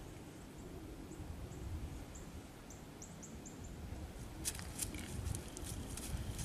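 A small bird gives a series of thin, high, falling chip notes, a few each second, over a low outdoor rumble. From about four and a half seconds, dry leaves crackle in short rustles.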